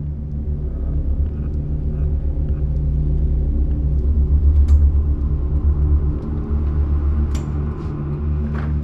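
A low, steady rumbling drone that swells slowly over the first few seconds, with a few faint clicks and knocks in the second half.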